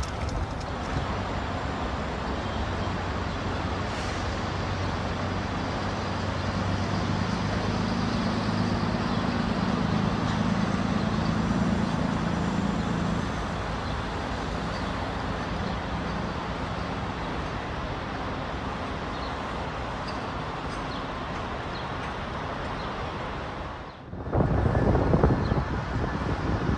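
City street traffic noise with a steady low engine hum from a heavy vehicle, strongest about a third of the way through. Near the end the sound cuts off abruptly and gives way to wind buffeting the microphone.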